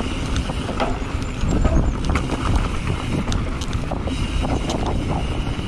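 Mountain bike rolling along a dirt forest trail: steady tyre rumble over the ground, with wind buffeting the microphone and scattered clicks and rattles from the bike.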